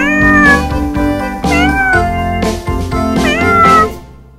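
A cat meowing three times, short calls about a second and a half apart, over background music that fades out near the end.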